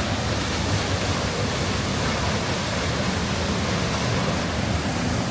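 Waterfall running heavy, a steady, even rush of falling water swollen by recent rain.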